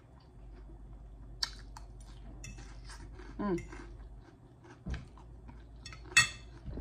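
A person chewing a mouthful of food, with small wet mouth clicks, a short hum of appreciation about three and a half seconds in, and a sharp click near the end, the loudest moment, over a low steady hum.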